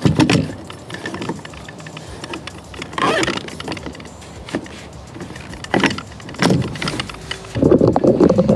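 Irregular knocks, clicks and rattles of a boat seat and its metal pedestal post being handled and fitted together, with a denser run of clatter near the end.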